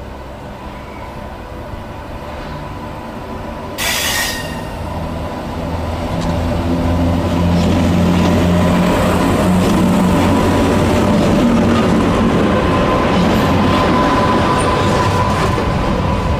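Two Class 86 electric locomotives hauling a container freight train slowly past, their traction motors giving a steady hum with a higher whine. The sound grows louder as the locomotives draw alongside, and a brief sharp hiss comes about four seconds in.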